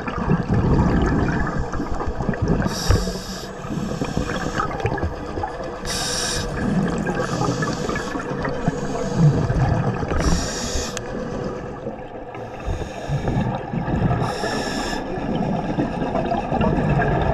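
Scuba diver breathing through a regulator underwater. A short hiss on each inhalation comes about every four seconds, four times in all, and the exhaled air bubbles out as a low rumble between them.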